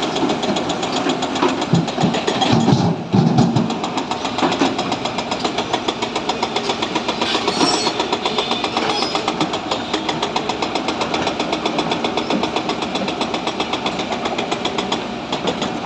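Sany SY140 excavator's diesel engine running steadily with a fast, even clatter, with a few heavy low thuds between about one and a half and three and a half seconds in.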